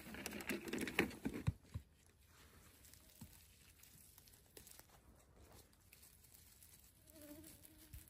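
Close rustling and crinkling with a few sharp snaps for about the first second and a half, then only faint scattered ticks.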